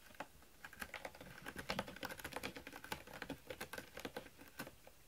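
A cat making quick, irregular clicking and scratching sounds up close, several a second, for about four and a half seconds.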